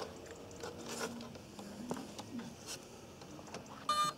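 Faint clicks and scrapes of hands handling a radio-controlled model aeroplane. Near the end comes a short, loud electronic beep from the model's electronics.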